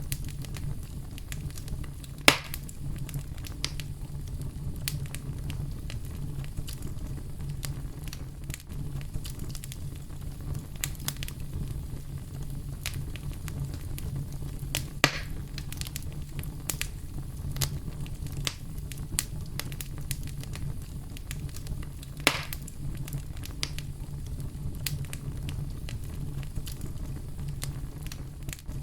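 Campfire crackling, with scattered sharp snaps and three louder pops (about two seconds in, about halfway, and near the end), over a steady low brown-noise rumble.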